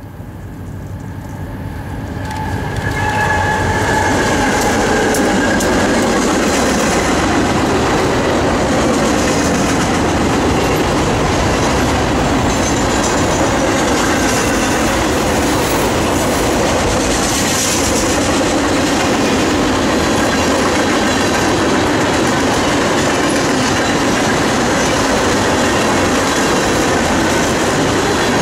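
Freight train rolling past at close range: the sound builds over the first few seconds as the train arrives, then holds as a steady rumble and rattle of boxcars and covered hoppers going by.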